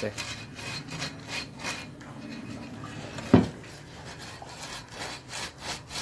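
Sandpaper scrubbed back and forth on a microwave oven's magnetron, repeated scratchy rasping strokes, rubbing off carbon deposits. A single sharp knock a little over three seconds in.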